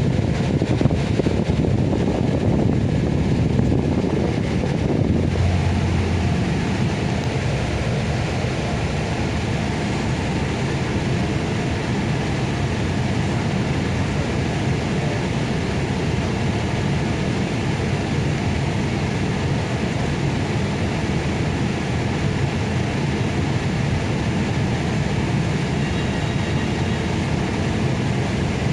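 Steady drone inside a bus: the air-conditioning blower running together with the bus's engine.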